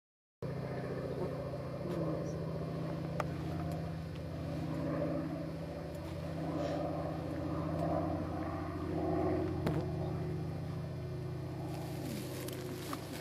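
Steady low engine drone, with a few faint ticks.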